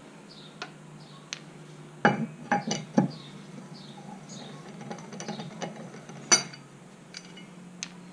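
Metal clinks and knocks of a cross wheel brace being fitted onto and turned on alloy wheel nuts, with loosened nuts set down on a concrete floor. A cluster of loud knocks comes about two to three seconds in and a single sharp clink about six seconds in, with lighter clicks between.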